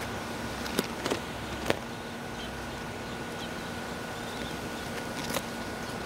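Steady outdoor background hum and hiss, with a few short sharp clicks in the first two seconds and one more near the end.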